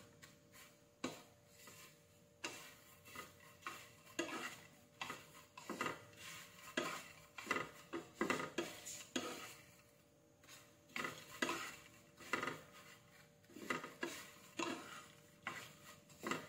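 Wooden spatula and wooden spoon stirring and tossing dried baby shrimp in a hot, dry nonstick frying pan, scraping and tapping against the pan in irregular strokes about once or twice a second. The shrimp are being dry-roasted and kept moving so they don't burn.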